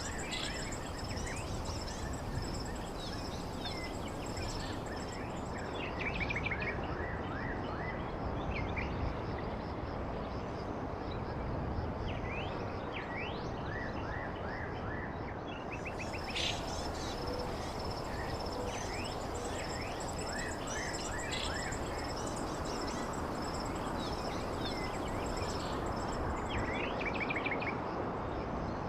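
Outdoor ambience: small birds chirping repeatedly over a steady background rumble of noise, with a thin high insect-like drone.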